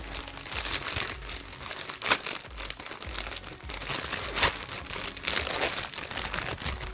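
A shipping package being torn open by hand: steady crinkling and crackling of the packaging, with two sharp rips about two seconds and four and a half seconds in.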